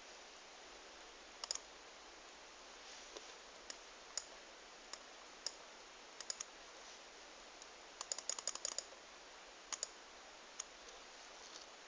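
Fingers tapping and clicking on a tablet: scattered sharp clicks, with a quick run of them about eight seconds in, over faint hiss.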